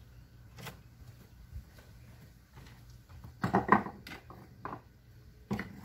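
Small wooden blocks knocking and clattering as they are picked up and set down with tongs on wooden deck boards, a few single knocks and then a louder cluster of clacks about three and a half seconds in.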